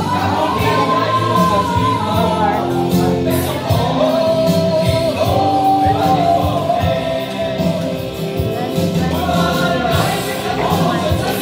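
Live band music with a singer holding long notes over a steady beat.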